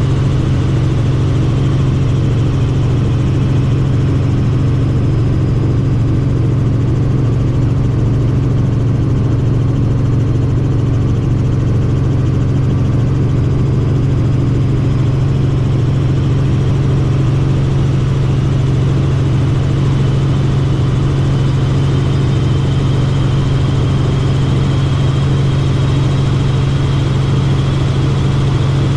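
Helicopter engine and rotors droning steadily, heard from inside the cabin: a strong, even low hum with a faint high whine that drifts slowly in pitch.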